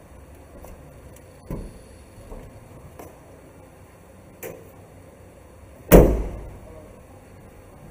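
Chevrolet Express cargo van side door being unlocked and opened, with a few small metal clicks of the key and door latch, then the door shut with a loud thud about six seconds in.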